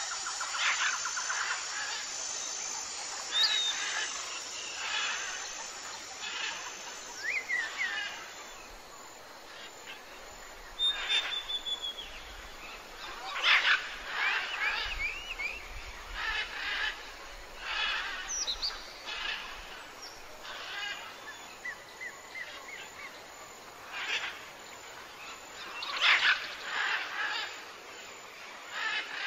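Several birds calling and chirping: short chirps and brief whistled notes every second or two, some gliding up or down in pitch, over a faint steady hiss.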